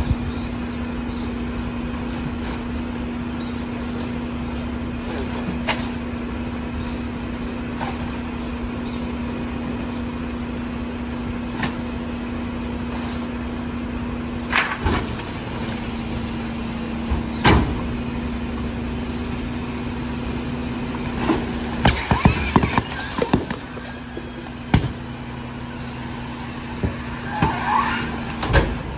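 McNeilus rear-loader garbage truck running with a steady hum as trash bags are thrown into its hopper, landing with a few thumps. About three-quarters of the way through, the packer blade cycles with a burst of metal clanks and short squeaks as it compacts the load.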